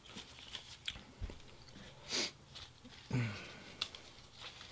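Faint crackles and small snaps of fresh herb and lettuce leaves handled and torn by hand, with a breathy sniff about two seconds in and a brief low hum from the voice a second later.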